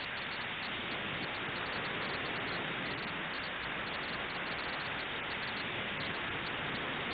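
A steady, even hiss of noise, without change.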